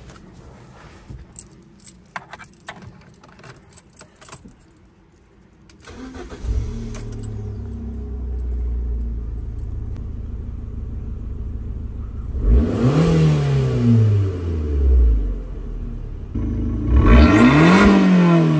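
Abarth 595 Turismo's 1.4 T-Jet turbocharged four-cylinder: a few clicks and key rattles, then the engine starts about six seconds in and settles to a steady idle. Near the end it is revved twice, the pitch rising and falling each time, with the car in its normal (non-sport) mode.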